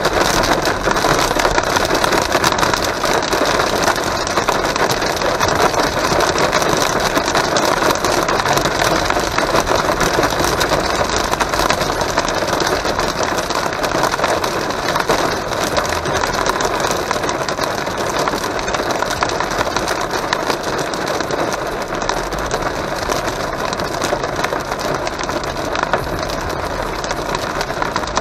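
Heavy rain and hail pelting a car's roof and windscreen, heard from inside the moving car: a loud, dense, steady clatter.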